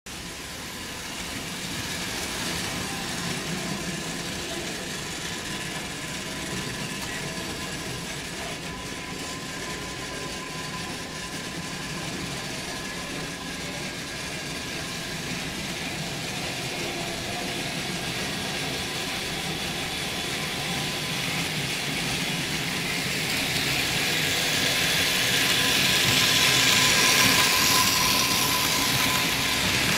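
Model train running along the track, a steady rolling rumble with a faint motor whine, growing louder over the last several seconds as it approaches and passes close by.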